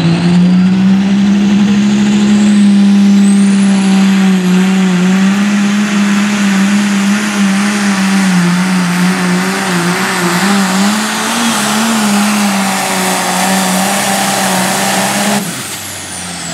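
Ford 9600 light pro stock pulling tractor's turbocharged diesel engine running flat out under load as it drags the sled, its steady high pitch wavering as the load shifts. A high turbo whine rises about three seconds in. Near the end the engine comes off full power as the pull ends.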